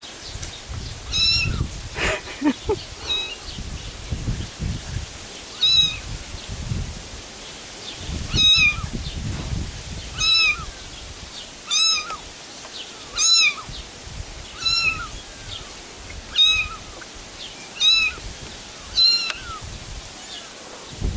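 Kitten mewing over and over: short, high-pitched mews, about one every one and a half seconds, over a low rumbling noise.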